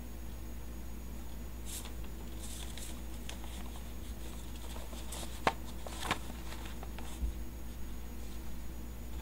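Sheets of paper rustling and being shuffled by hand, with a few sharper crinkles and snaps, the loudest about five and a half seconds in, over a steady low hum.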